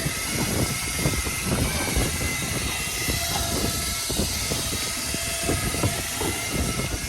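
Wind buffeting the microphone over the steady hum of a fishing boat's engine.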